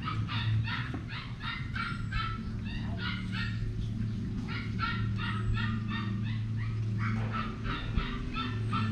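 Puppy crying in quick, repeated high-pitched yelps and whines, several rapid trains of them, while being washed in a bucket.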